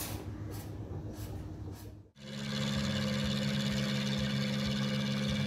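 A boat's engine drones steadily from about two seconds in, after a brief drop-out. Before that there is a lower, steady hum.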